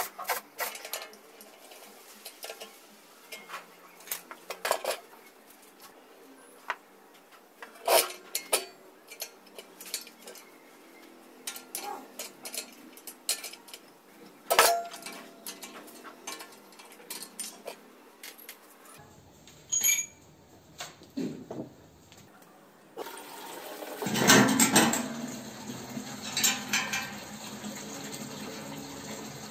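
Scattered metallic clinks and knocks as a stainless steel stove frame and its gas valve fittings are handled and tightened with hand tools, the loudest about eight and fifteen seconds in. A denser run of clatter comes near the end as a bolt on the frame is worked with a spanner.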